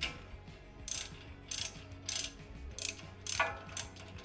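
Hand ratchet clicking in repeated short strokes, about six in a row, as the nut on a Lexus GX470's new outer tie rod end is run down tight.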